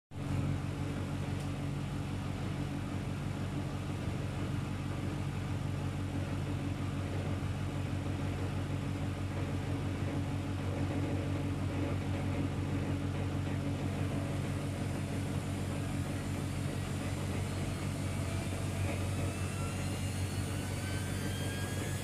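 Luxor WM 1042 front-loading washing machine spinning an unbalanced load, a steady low motor-and-drum hum. Over the last few seconds a whine rises in pitch as the drum speeds up.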